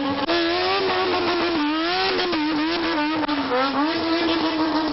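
Bosozoku vehicle engines revved again and again, the pitch climbing and dropping in waves, with more than one engine overlapping.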